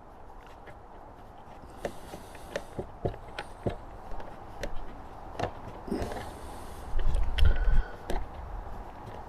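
Scattered light clicks and taps of small metal bolts, washers and a hex key as a motorcycle windscreen's mounting bolts are worked out by hand, with two short rustling stretches and a louder dull low rumble about seven seconds in.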